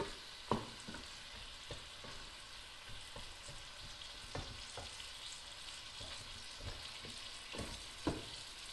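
Sliced onions and tomatoes frying in a stainless steel pot with a steady sizzle, stirred with a wooden spoon that knocks against the pot now and then.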